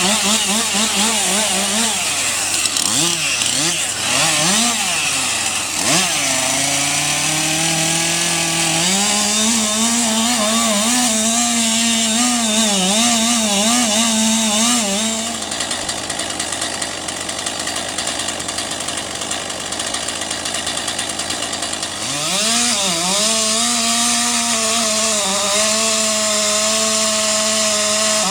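Two-stroke chainsaw running at high revs and cutting wood, its pitch wavering and dipping as it loads in the cut. About halfway through the engine tone drops away for several seconds, leaving a noisy hiss, then the saw revs up again and holds at full throttle.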